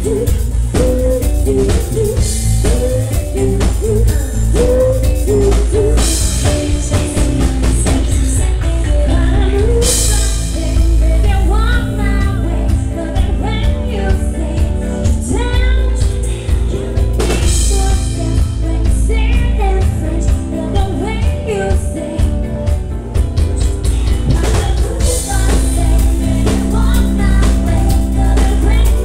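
A pop song performed live: a woman singing lead over a band with a drum kit.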